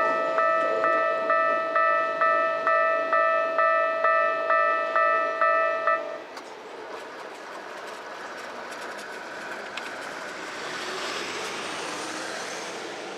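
Japanese railway level-crossing warning bell ringing: an electronic ding at a little over two strikes a second that stops about six seconds in. A broad rushing noise then swells and eases off.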